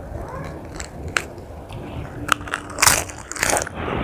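Fresh lettuce leaves handled with a few sharp crinkling clicks, then loud crisp crunching close to the mouth about three seconds in as a bite of raw lettuce is taken.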